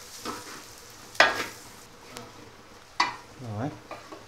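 Wooden spatula stirring and scraping shallots and chilli powder around a metal frying pan over a faint sizzle. There are two sharp loud scrapes, about a second in and about three seconds in.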